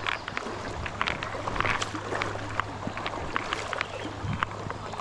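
Creek water splashing and sloshing, with many small irregular splashes from wading through the current.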